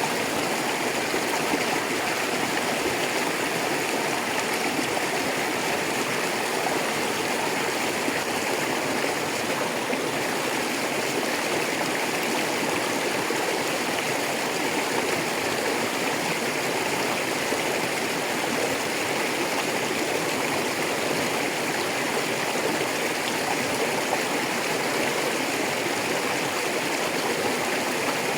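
A rocky river flowing, a steady rushing of water over stones.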